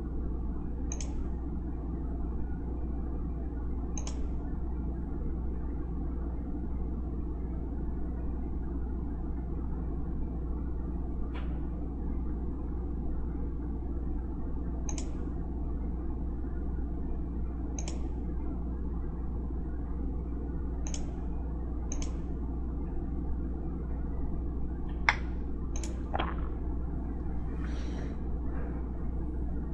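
Computer mouse clicks, single sharp clicks every few seconds with a quick cluster near the end, over a steady low hum.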